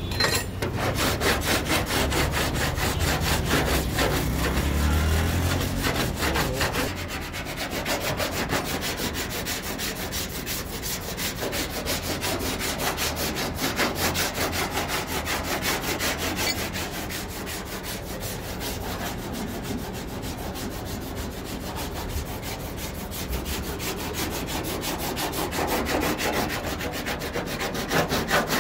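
A cloth rubbed rapidly back and forth by hand over a car's painted body panel, giving a steady, rhythmic rasping.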